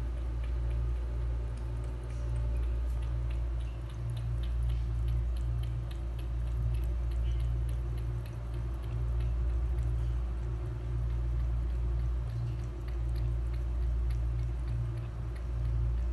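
A cat lapping water from a plastic tub: a run of quick, small wet clicks from its tongue striking the water surface, over a steady low hum.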